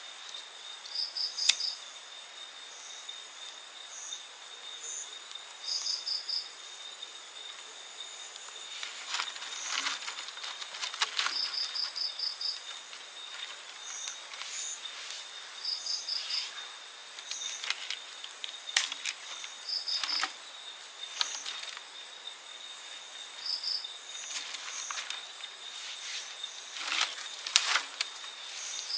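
Insects droning in steady high tones, with a short call of four or five quick chirps that repeats every few seconds. Scattered sharp knocks and clatter, a cluster of them near the end.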